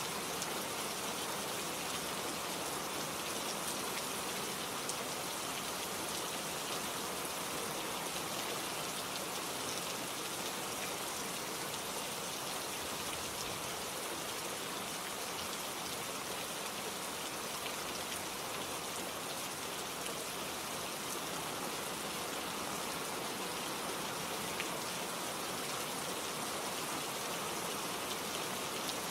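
Steady rain falling, an even hiss of rain with many small drops pattering on a surface.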